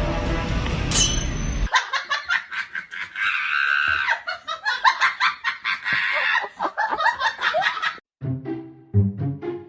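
Music that cuts off about two seconds in, giving way to several seconds of rapid, high-pitched laughter; another music track starts near the end.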